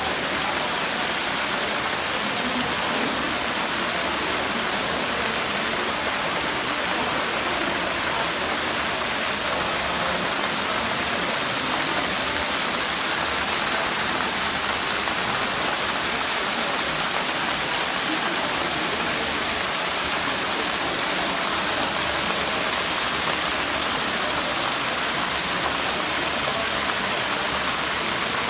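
Steady rain falling, an even hiss of water at a constant level throughout.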